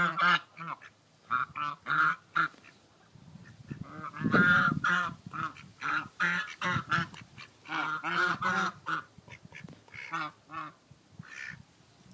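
A goose and a duck calling: a run of short, nasal honks and quacks in quick clusters with brief gaps. About four seconds in, several calls overlap into a louder burst.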